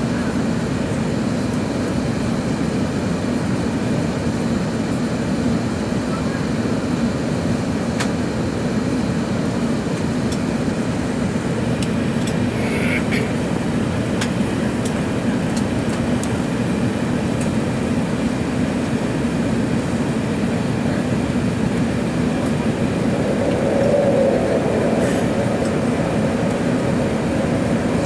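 Steady cabin noise of an Airbus A380-861 climbing out: the low rumble of its Engine Alliance GP7200 turbofans and the rushing airflow, heard from a window seat over the wing. A slight swell in the noise comes about three-quarters of the way through.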